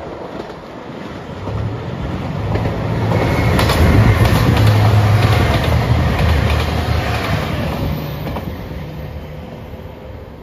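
A JR Shikoku 2700 series diesel express train passes by, its diesel engines running and its wheels clacking over the rail joints. It grows louder to a peak about four to five seconds in, then fades as it moves away.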